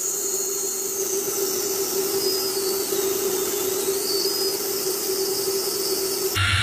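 Large jet airliner on final approach with its landing gear down: steady jet engine noise with a steady hum and a high whine that dips in pitch and rises again around the middle. Near the end the sound changes abruptly to a louder, lower drone with more hiss.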